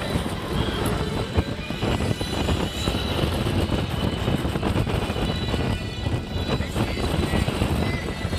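Hiccup's Wing Gliders roller coaster train running along its track: a steady, low-heavy noise of the ride in motion, with music underneath.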